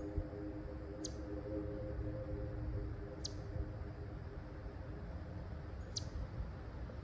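Quiet woodland ambience: a small animal's short, high, falling chirp three times, two to three seconds apart, over a steady low rumble. A faint chord of steady tones fades away in the first few seconds.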